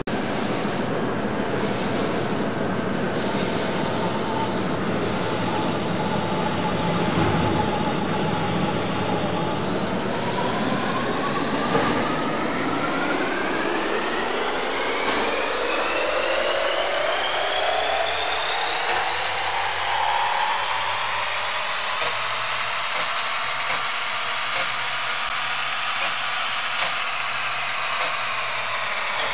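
Metal lathe running while it turns a nozzle head: a steady machine noise with a whine that rises in pitch from about a third of the way in and then holds.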